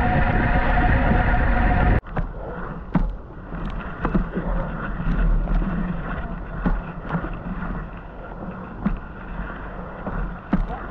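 Mountain bike being ridden over rough, wet ground, with wind on the microphone: a steady rush of noise with scattered clicks and knocks from the bike. The sound cuts abruptly to a quieter stretch about two seconds in.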